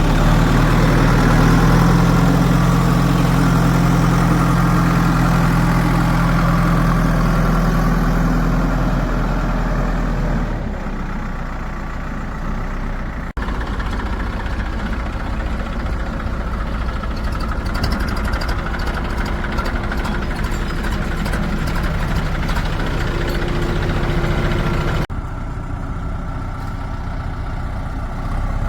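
Diesel engines of farm tractors or a backhoe loader running steadily. A strong, even hum for about the first ten seconds gives way to a weaker, rougher engine sound, and the sound breaks off abruptly and changes twice, near the middle and near the end.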